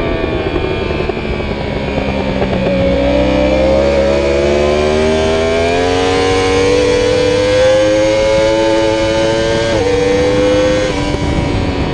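Yamaha YZF-R1 sport bike's inline-four engine under load, heard on board over wind noise. The note dips about two seconds in, climbs steadily for several seconds as the bike accelerates through a long bend, then drops sharply at an upshift near the end.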